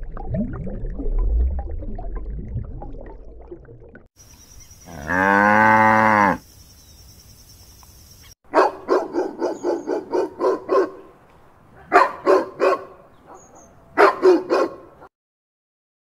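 A low rumbling water noise, then a cow mooing once in a long call, then a dog barking in three quick runs of barks: about eight, then three, then three.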